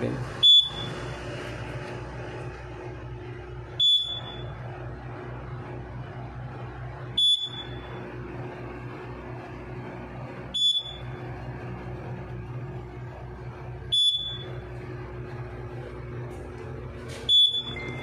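Fire alarm control panel's buzzer giving a short, high-pitched beep about every three and a half seconds, six times, over a steady low hum. This is a trouble beep, which the installer puts down to the panel having no backup battery fitted.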